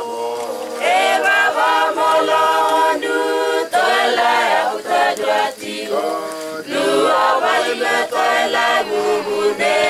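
Unaccompanied group singing: several voices hold sung notes in a choir-like song, phrase after phrase with short breaks between them.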